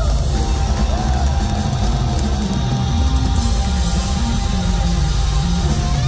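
Live rock band playing an instrumental passage: distorted electric guitar, bass guitar and drum kit, with bending guitar notes in the first second.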